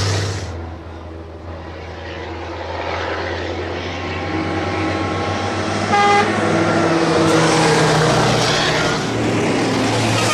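Dakar race trucks' diesel engines: one fading away just after it passes, then another growing louder as it climbs toward the listener, its engine note rising. A short horn toot sounds about six seconds in.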